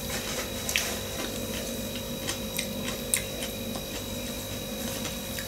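Quiet eating of potatoes: soft chewing and a few light, irregular clicks of a metal fork against the bowl, over a faint steady hum.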